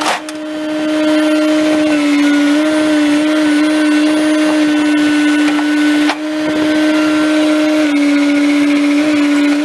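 Bobcat T630 track loader running at high throttle, a loud, steady, high-pitched machine whine from its engine and hydraulics, with a short dip about six seconds in.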